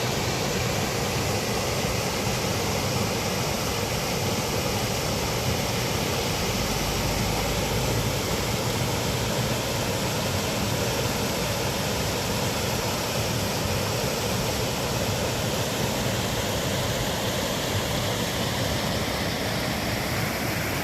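Mountain stream rushing over rocks: a steady, even sound of flowing water.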